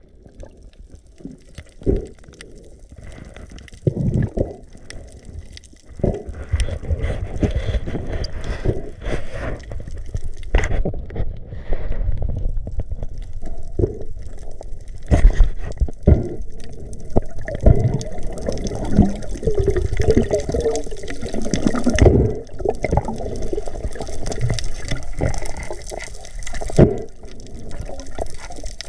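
Water sloshing and gurgling without a break, with scattered sharp knocks. The sound is low and dull and grows busier after the first few seconds.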